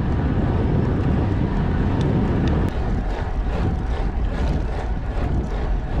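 Steady wind rush over the microphone and low rumble from a road bike cruising at speed.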